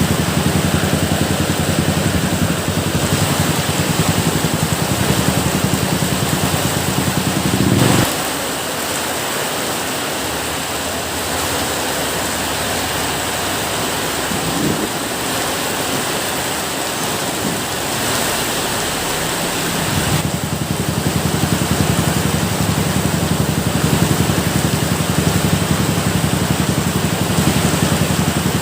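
Steady, even rain hiss with a low rumble beneath it. The rumble stops about eight seconds in and comes back about twenty seconds in.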